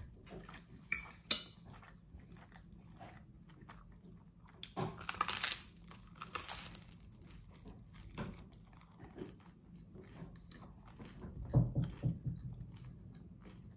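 Close-miked eating: chewing spaghetti, then a bite into toasted garlic bread with a long crunch about five seconds in, followed by more chewing.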